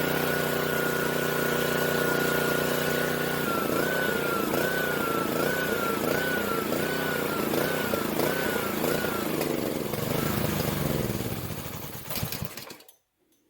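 Honda GCV190 single-cylinder engine on a pressure washer running steadily after a restart on fresh gas. From about four seconds in, its speed rises and falls in a regular rhythm, about once every two-thirds of a second, for several seconds. The sound then fades out near the end.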